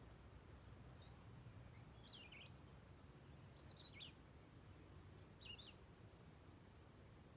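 Faint songbird calls in the woods: four short, wavering chirped phrases a second or two apart, over a low steady background rumble.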